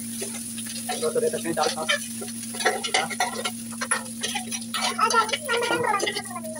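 Cooked rice tipped and scraped out of an aluminium pot into a kadhai of hot tempering oil, sizzling as it lands, with repeated knocks and scrapes against the pot to free the rice.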